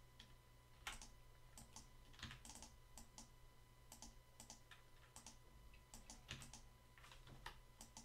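Faint, irregular clicking of a computer keyboard and mouse, a few clicks a second, some in quick pairs.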